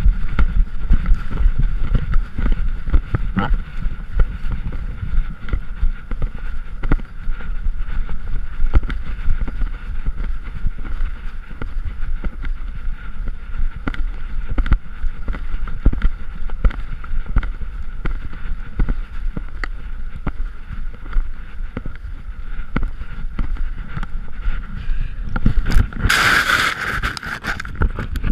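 Rumble and irregular knocks from a GoPro strapped to the chest of a running wolf: wind buffeting the camera and the jolts of the animal's strides. Near the end a louder rushing scuffle as fur and snow brush against the camera.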